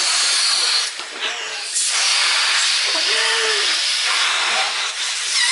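People blowing hard into latex balloons in a race to inflate them: a steady rushing hiss of forced breath, with a brief break about a second in.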